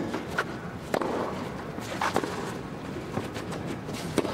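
Tennis rackets striking the ball back and forth in a rally, a string of sharp pops over a steady low crowd hush.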